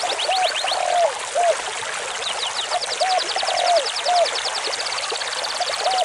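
Stream water rushing over rocks in a steady hiss. Over it come repeated short whistles and fast, high-pitched trills.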